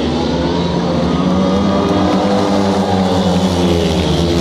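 Several 500 cc single-cylinder speedway motorcycles racing, their engine notes rising and falling in pitch.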